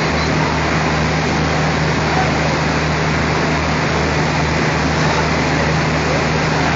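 Diesel locomotive engine running with a steady low drone as the locomotive creeps slowly forward.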